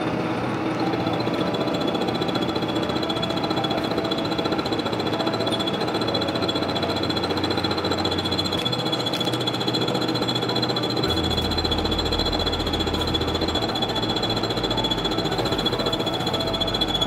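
Milling machine running a homemade single-point fly cutter across the face of a steel beam: the rapid, hammering chatter of the interrupted cut over a steady high whine from the machine, sped up fourfold.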